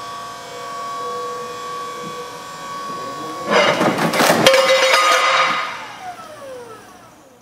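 Electric stand-up reach truck reversing with a steady whine, then a loud crash about three and a half seconds in as the truck runs under the pallet-rack beam and the beam strikes the operator's position. A sharp snap follows about a second later, and a falling whine fades away.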